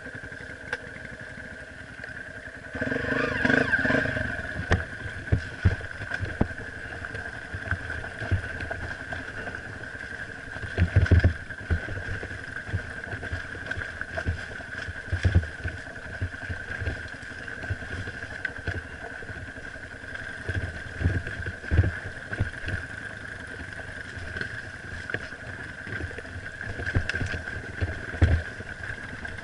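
Dirt bike engine running at trail speed, heard from on the bike, with frequent knocks and thumps as it rides over a rocky track. The engine revs up and gets louder about three seconds in.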